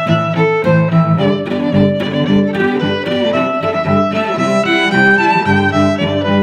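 Background music: a medieval-style pirate tune with a melody of held, changing notes over a steady beat.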